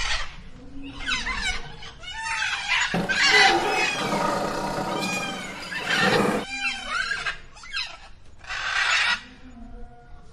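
Animal squeals and calls, many short rising and falling cries one after another, thickest and loudest from about three to six seconds in.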